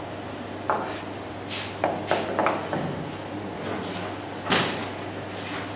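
Several short knocks and clatters of a component being handled on a table, the loudest about four and a half seconds in, over a steady low hum.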